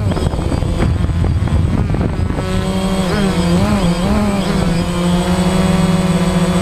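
DJI Phantom quadcopter's motors and propellers whining, heard from its onboard camera. Rough and noisy for the first couple of seconds, the pitch wavers up and down around the middle as the drone manoeuvres, then holds steady.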